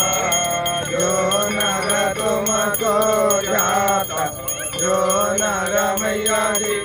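Male voice singing a Ganga aarti hymn, with bells ringing.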